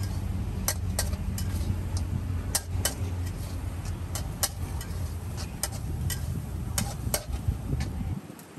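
Metal spatula striking and scraping a wok in irregular clacks while stir-frying, over a steady low rumble that drops away suddenly near the end.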